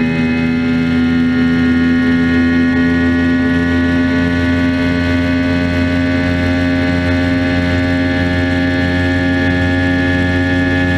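Mercury 150 outboard motor running under way at a steady pitch, heard close up at the engine.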